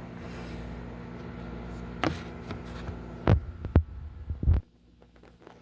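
Microwave oven running with a steady low hum, with a few sharp knocks about two to four and a half seconds in; the hum cuts off suddenly near the end as the heating cycle stops.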